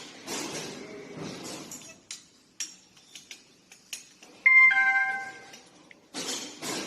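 A two-note electronic ding-dong chime, a higher tone falling to a lower one, about four and a half seconds in, with short noisy swishes near the start and end and a few light clicks between.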